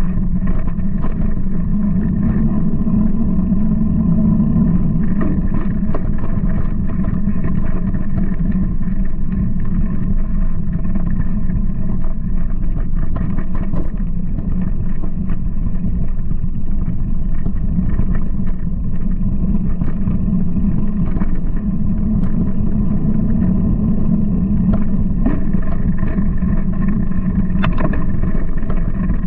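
Steady rumble of wind and vibration on a bike-mounted camera's microphone as a mountain bike rolls along a dirt trail, with frequent small knocks and rattles from the bike going over bumps.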